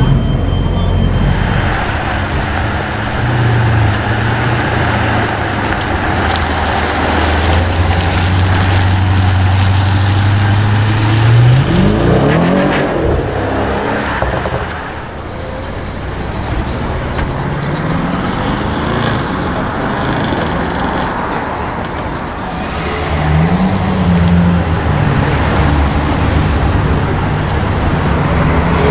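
Audi RS6 engine running steadily at first, then revved three times about five to six seconds apart, its pitch rising and falling with each rev.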